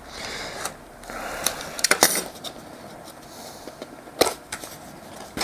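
A utility knife scraping through the seal on a small cardboard box, then the box being handled and pulled open, with a few sharp clicks and taps. The loudest click comes about four seconds in.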